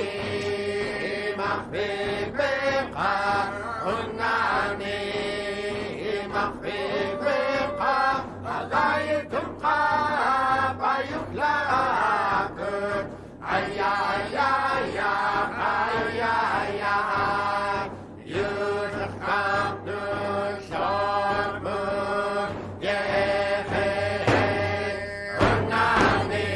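Background music of chant-like singing over a steady held note. Near the end it gives way to music with a heavier low beat.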